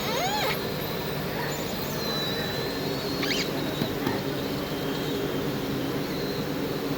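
Steady machine hum of an automatic fabric-cutting machine running, with a few brief high squeaks and a thin high whistle over it.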